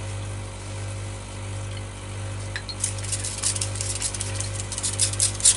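Crackly rustling from handling, starting about three seconds in, as gloved hands work through the feathers along a pheasant's neck. A steady low hum runs underneath.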